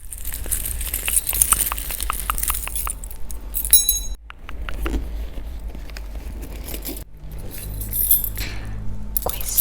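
Small metal objects clinking and jangling as they are handled, with quick clicks early on and a short bright metallic ring near the middle.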